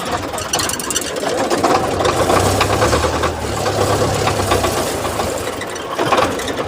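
Belarus 510 tractor's diesel engine running with a fast, even clatter; a deeper low hum comes in for a couple of seconds in the middle.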